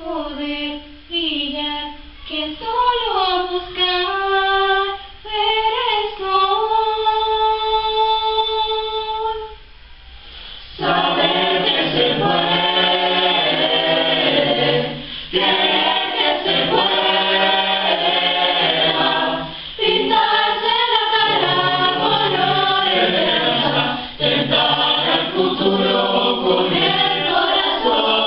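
Mixed school choir singing a cappella. A single melodic line ends on a long held note, then about eleven seconds in the choir comes in louder and fuller, singing in phrases with short breaths between them.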